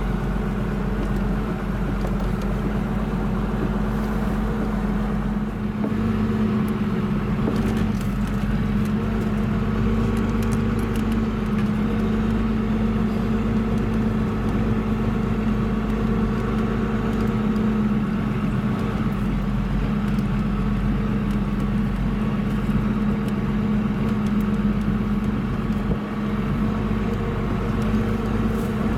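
A car's engine running steadily under way, a constant drone with road noise underneath.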